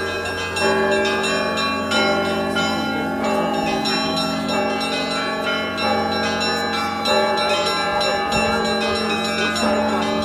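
Church bells ringing: many bells struck in quick succession, their tones ringing on and overlapping, over a steady low bell tone.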